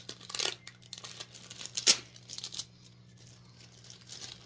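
Packaging being torn open and rustled by hand: a few short tearing, crinkling rasps, the sharpest about two seconds in, then quieter handling.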